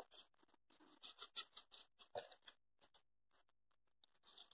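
Near silence, with faint, scattered rustles and light scrapes of EVA foam petals being handled, dying away after about two and a half seconds.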